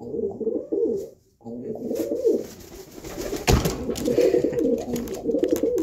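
A pet white dove cooing over and over in wavering calls, with a single sharp knock about halfway through.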